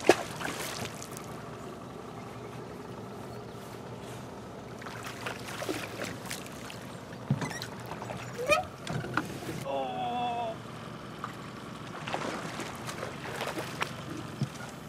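Hooked striped bass splashing at the water's surface beside a boat as they are reeled in. A sharp splash right at the start is the loudest sound, and further splashing comes in short spells.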